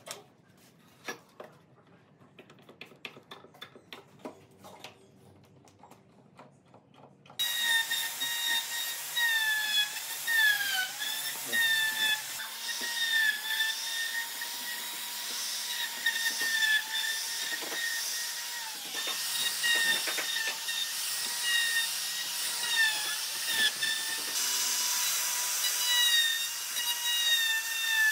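A few light clicks and knocks, then about a quarter of the way in an electric plunge router starts up: a loud, steady, high whine as it surfaces a hardwood slab on a sled jig. Its pitch dips briefly now and then as the bit bites harder into the wood.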